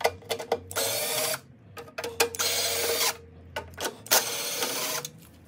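Cordless driver spinning Phillips screws out of a lawnmower engine's shroud, running in short spurts with three longer whirring runs, about a second, two and a half seconds and four seconds in.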